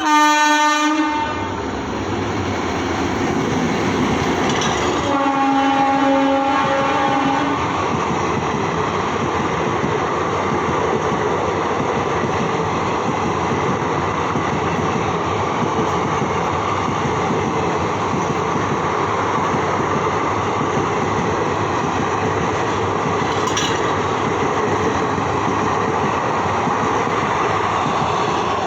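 WAP7 electric locomotive horn, first a short blast and then a longer, lower one about five seconds in, as the train passes at speed. Then the steady rush and clickety-clack of ICF coaches running through at about 110 km/h.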